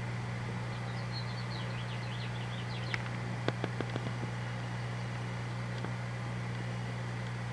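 A small songbird sings a quick run of high chirping notes for about two seconds, over a steady low mechanical hum. A few sharp clicks follow just after the song.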